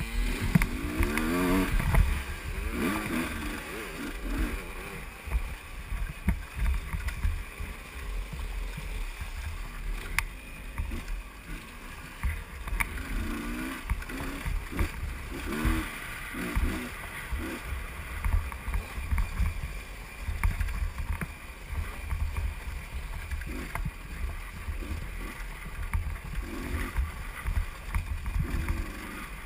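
Dirt bike engine revving up and down over and over as the bike is ridden hard along a rough trail, its pitch climbing and dropping every second or two with the throttle and gear changes, over a steady wind rumble on the microphone.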